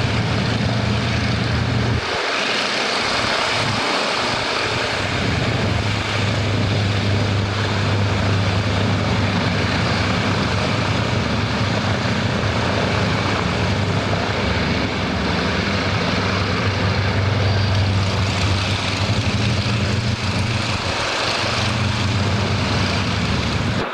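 Aircraft engine noise: a loud, steady drone that briefly thins twice.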